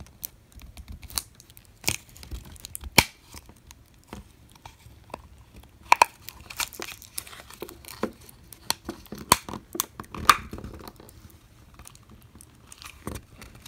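Plastic battery pack casing of an iRobot Braava Jet 245 being pried at by hand, giving irregular clicks and creaks from its snap clips, with a few louder sharp snaps.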